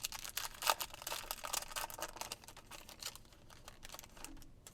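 A trading-card pack wrapper being torn open and crinkled, a dense run of small crackles and clicks that thins out near the end.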